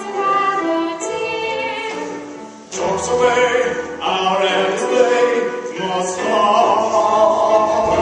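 Stage musical cast singing a show tune together with musical accompaniment. The singing breaks off briefly a little under three seconds in, then comes back in.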